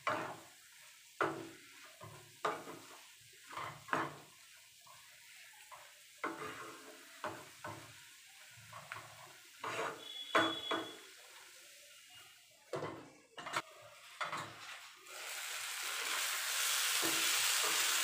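Wooden spatula stirring and scraping chicken pieces in a non-stick frying pan, a series of irregular scrapes and soft knocks. About fifteen seconds in, a loud steady sizzle of frying sets in as the gas is turned up.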